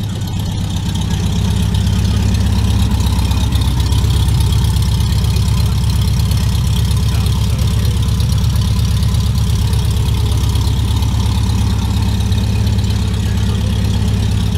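A classic Volkswagen Beetle's air-cooled flat-four engine idling steadily, a deep even running sound that swells a little in the first second or two.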